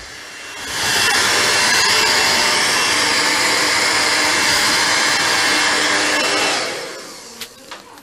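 Handheld hair dryer switched on, blowing steadily with a faint whine for about six seconds, then switched off and winding down. A couple of small clicks come near the end.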